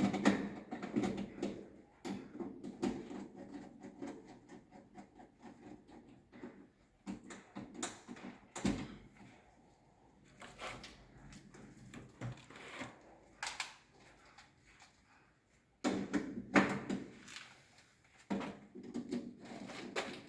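Irregular clicks, knocks and rattles of plastic miniature circuit breakers being handled and fitted into a distribution board, with the loudest clusters at the start and again about three-quarters of the way through.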